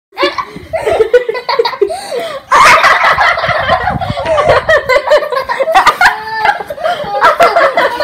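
A group of children laughing and giggling together, many voices overlapping. It starts softer and gets louder about two and a half seconds in.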